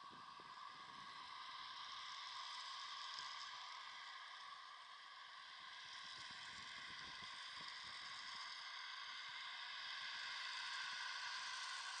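John Deere 7310R tractor working under load, pulling a seven-furrow Kverneland reversible plough: a faint, steady engine and drivetrain whine heard from a distance, slowly growing louder as the tractor comes closer.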